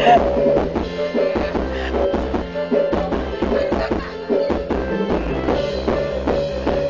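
Dance music with a steady drum beat.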